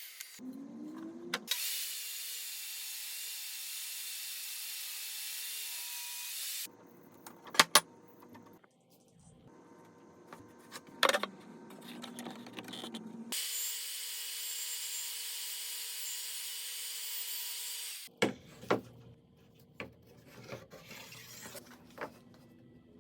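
Woodworking power tool running in two steady stretches of several seconds each. Between and after them come sharp wooden knocks and clatter as pieces are handled.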